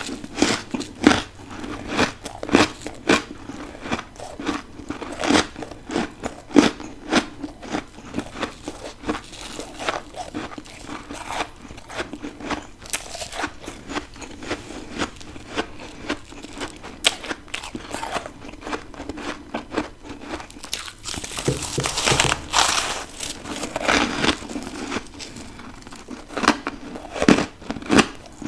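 Close-up biting and chewing of freezer frost and ice: a long run of sharp, crisp crunches with short pauses, louder for a couple of seconds about three-quarters of the way through.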